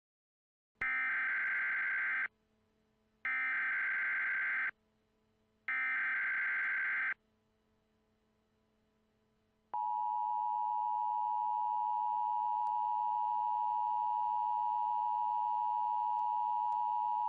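Emergency Alert System tones: three short bursts of screechy digital SAME header data, each about a second and a half, then, just under ten seconds in, the steady two-tone EAS attention signal, held to the end. They announce an incoming tornado warning.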